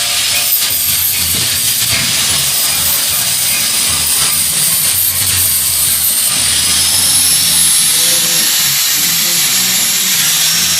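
Electric power tool running steadily with a loud hiss and a thin high whine that rises in pitch about six seconds in.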